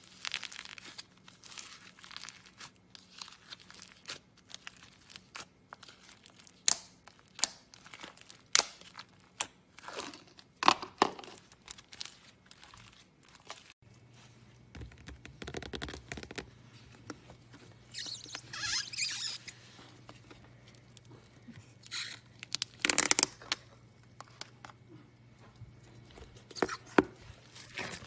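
Homemade slime (glue, green gouache paint and boric-acid water) being mixed and worked by hand, giving irregular sticky crackles, pops and short tearing sounds as it pulls apart.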